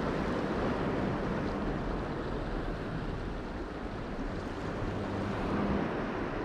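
Steady noise of wind and of sea waves washing against jetty rocks, with wind buffeting the microphone.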